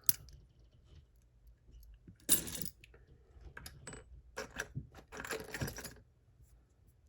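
Small metal tool scraping and clicking against a lock while prying at the little retaining ring on its core: a sharp click at the start, a louder scrape about two seconds in, then scattered clinks and two spells of scratching that stop about six seconds in.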